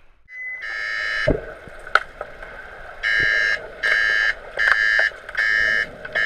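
Underwater referee's buzzer sounding through the pool water: one long blast, then a run of short blasts about two-thirds of a second apart starting about three seconds in, the signal for a stop in play. Sharp clicks and knocks are heard between the blasts.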